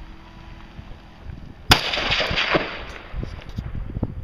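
A single rifle shot about a second and a half in, its echo rolling on and dying away over more than a second.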